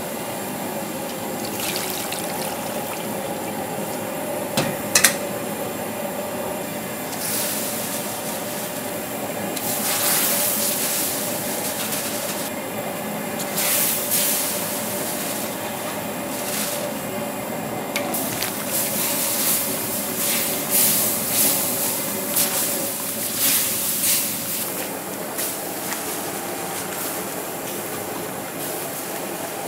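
Noodles cooking in a large steel wok of simmering broth, the liquid bubbling and splashing in swells as the noodles are tossed with long chopsticks, over a steady hum, with one sharp knock about five seconds in.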